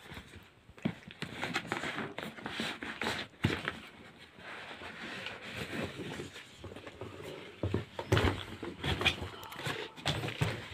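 Handling noise as a fabric DJI drone carry bag is pulled out of its cardboard box and set down on a bed: irregular rustling and scraping with scattered soft knocks.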